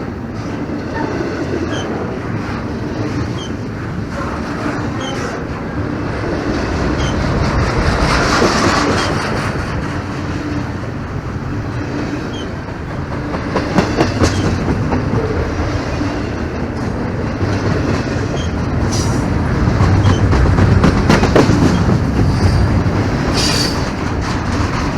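Norfolk Southern freight train rolling past, its wheels clattering steadily over the rails, with short high wheel squeals, one of them near the end.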